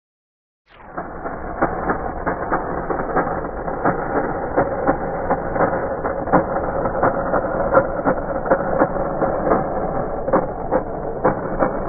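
Electric motor and gear drive of a 1:18-scale RC truck chassis running with a steady whine, with irregular clicks and crackles as the truck rolls over gravel. It starts suddenly about a second in.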